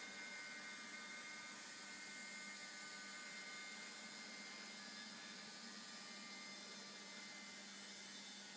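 Small battery-powered electric motor of a toy cable car whirring steadily as it pulls itself along a string line: a faint, even whine.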